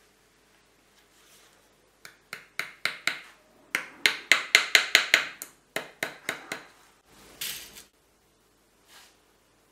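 Shoemaker's hammer tapping on sole leather held on a shoe last. A quick run of about twenty sharp taps, several a second, starts about two seconds in and stops after about four and a half seconds. A brief rustle follows.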